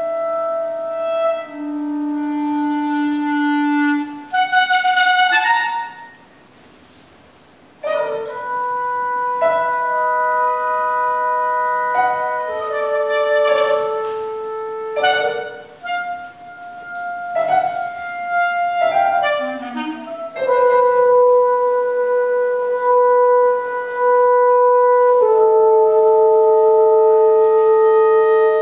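Live chamber trio of clarinet, French horn and piano playing a contemporary piece: long held wind notes over struck piano chords, with a short pause about six seconds in.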